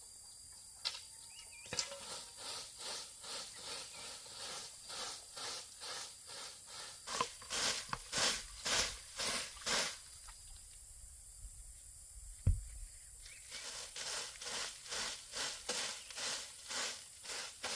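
Regular scraping strokes, about two to three a second, pause for a few seconds in the middle and then start again. A single dull thump falls in the pause.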